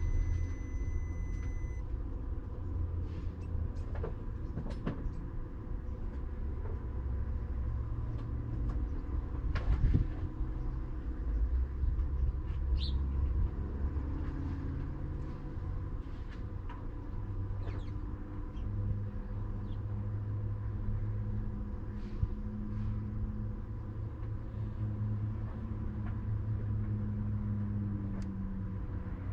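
Low steady rumble with a faint hum, broken by scattered clicks and knocks of tools and parts being handled; the loudest knock comes about ten seconds in.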